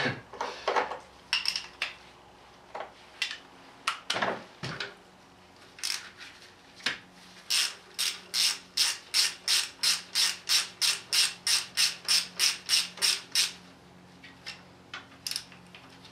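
Hand ratchet wrench clicking in a quick, even run of strokes, about three a second for some six seconds, backing out the 10 mm bolts on a Cummins diesel's water pump. A few scattered tool clicks and knocks come before the run.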